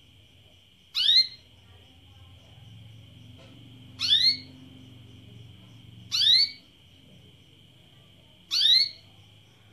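Female domestic canary giving its call for a mate: four short rising chirps, each under half a second, spaced two to three seconds apart.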